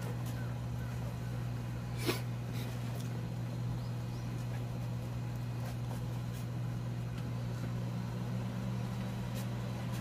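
Faint sounds of a litter of puppies nursing on their mother, over a steady low hum. One brief sharp sound comes about two seconds in.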